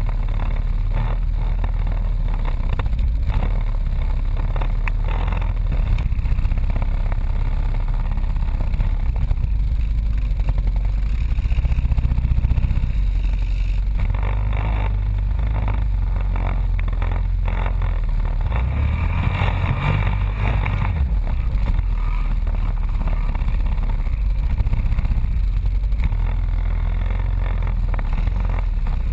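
Onboard ATV engine running steadily under load over a rough, muddy trail, with frequent knocks and rattles from the bumps.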